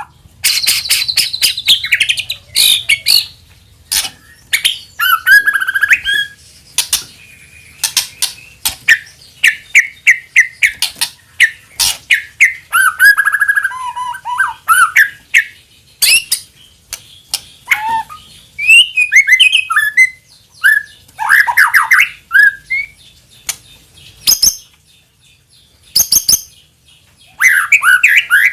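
White-rumped shama (murai batu) singing loud, varied phrases: clear whistles and pitch glides mixed with fast clicking rattles, broken by brief pauses near the end. It is a lure song, used to set other shamas singing.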